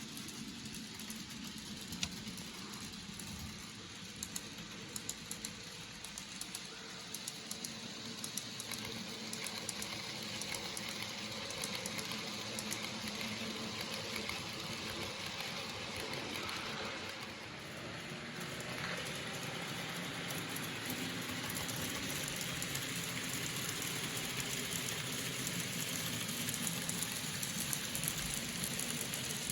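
N gauge model trains running on a layout: a small electric motor running steadily, with wheels clicking over rail joints.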